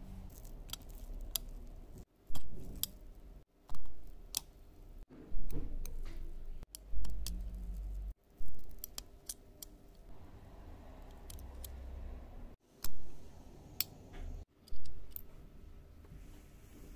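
Handling a Xiaomi Redmi Note 10 smartphone's disassembled parts: sharp plastic clicks and snaps as a plastic pry tool works at the board connectors and the motherboard is lifted out. Seven louder bumps stand out, each starting suddenly and fading within about half a second.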